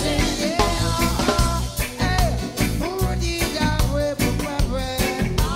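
Background music: a song with a singing voice over drums and bass, with a regular beat.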